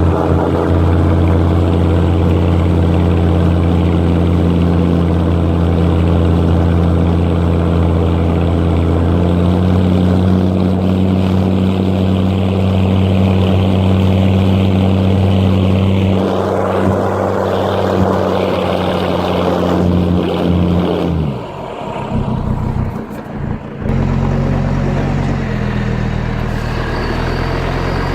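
Mercedes-Benz G-Class engine running steadily under load. Its note shifts about a third of the way in, then falls away briefly near the end before settling at a new steady pitch.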